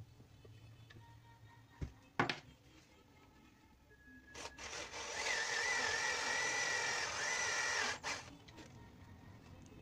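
Cordless drill boring into an axe handle: a couple of sharp knocks about two seconds in, then the drill runs under load for about three and a half seconds, a steady whine over a grinding noise, and stops suddenly.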